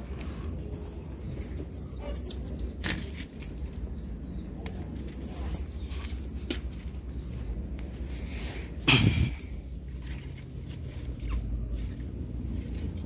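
Baby otters chirping: short, very high-pitched wavering squeaks in quick clusters, several times over, with one louder, lower sound about nine seconds in.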